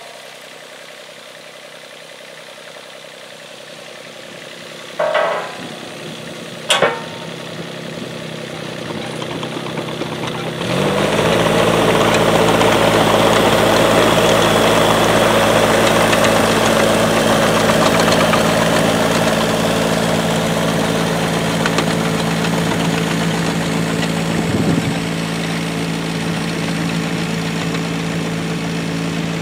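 Yuchai YC15-7 mini excavator's diesel engine running, faint at first with two short knocks, then about ten seconds in it becomes loud and steady and stays so.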